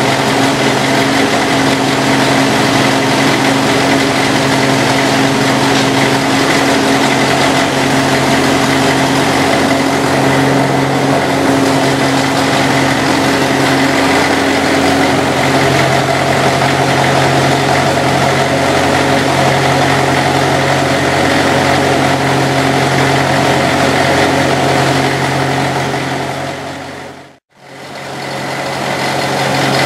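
International crawler tractor's diesel engine running steadily at idle after being started for the first time in six years. The sound fades out briefly near the end, then returns.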